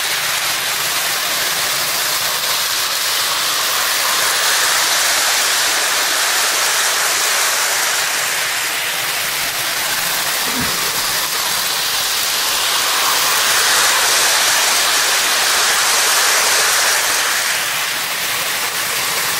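Lionel Hudson 4-6-4 toy electric locomotive pulling a full train of cars around three-rail toy track: a steady rushing rattle of motor and wheels on the rails, swelling slightly twice.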